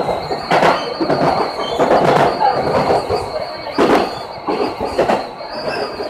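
Electric commuter train rolling slowly over pointwork, its wheels knocking and clattering several times on the rail joints and crossings, under a steady high-pitched whine, as heard from inside the driver's cab.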